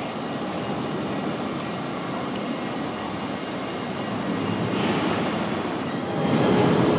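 Articulated HTM GTL8 tram rolling past, its wheels on the rails giving a steady rumble. About six seconds in the sound gets louder and a rising motor whine begins, as a tram pulls away.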